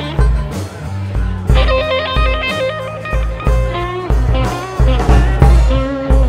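Live blues band playing a slow blues instrumental passage. An amplified harmonica is played cupped against a microphone, with wavering held notes, over electric guitar, bass and drums.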